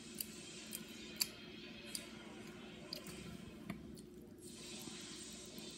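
A mouth chewing a cooked grasshopper: about six small, sharp clicks at irregular spacing, the loudest a little over a second in, over a steady low hum.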